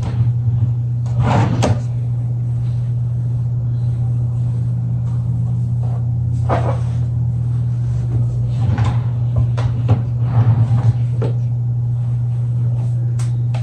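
Dresser drawers being pulled out and pushed shut: sliding scrapes and knocks about a second in, around six and a half seconds, and a cluster between nine and eleven seconds, over a steady low hum.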